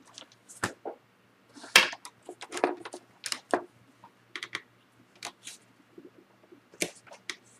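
Plastic LCD bezel of a Dell Vostro 1100 laptop being pried off by hand: a series of sharp clicks and snaps as its clips let go, the loudest about two seconds in.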